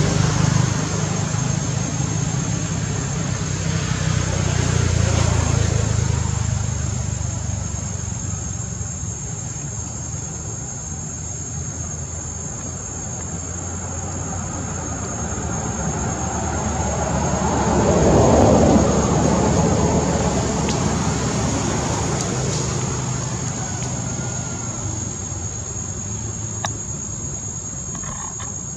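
Road traffic passing: a low engine rumble that swells and fades a few times, loudest about two-thirds of the way through, over a steady high insect drone.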